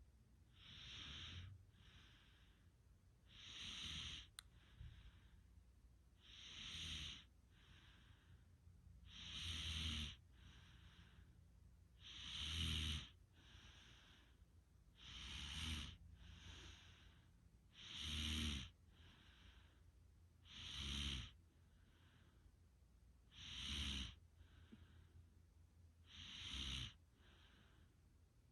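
A sleeper snoring in slow, even breaths, about one every three seconds. Each loud breath swells with a low buzz and breaks off, and a softer breath follows in between.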